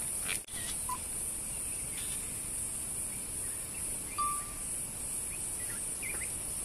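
Steady high-pitched drone of insects in the bush, with a short faint tone about four seconds in.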